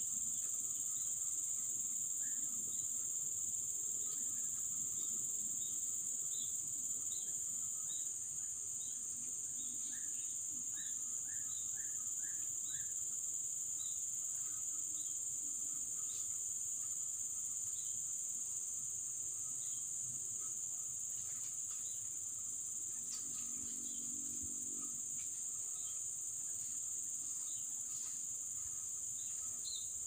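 Steady high-pitched drone of forest insects, with scattered short bird chirps over it and a quick run of about five chirps about ten seconds in.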